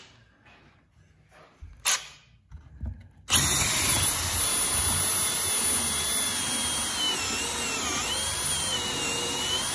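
A few faint clicks, then about three seconds in a cordless drill starts up with a hole saw cutting into a wet wooden board. It runs steadily, with a high motor whine that wavers and dips as the saw's steel teeth bite into the wood.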